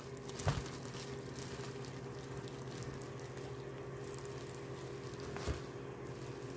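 A steady low hum, with two soft knocks: one about half a second in, another near the end.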